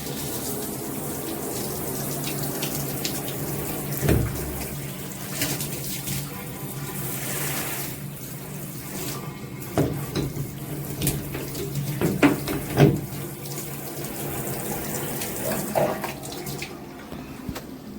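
Water running steadily from a shower head, with a few short knocks and clatters at scattered moments, the loudest in the second half.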